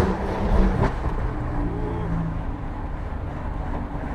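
BMW car engine running, a steady low rumble heard from inside the cabin.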